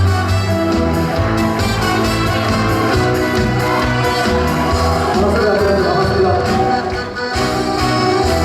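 Instrumental intro of a Korean trot song: a steady bass and drum beat under a sustained melodic lead.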